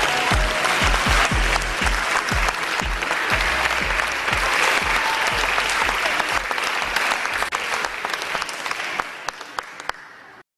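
Audience applauding over pop music with a heavy, steady beat. The beat fades out over the first few seconds and the applause carries on, dying away and cutting off just before the end.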